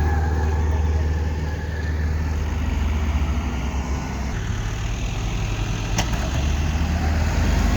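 Heavy diesel engines of a loader and backhoe running, a steady low drone whose pitch shifts a little about halfway through. A single sharp click about six seconds in.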